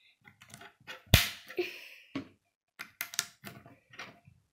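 K'nex plastic rods and connectors being fitted and pressed together: a run of irregular sharp clicks and knocks, with one loud snap about a second in.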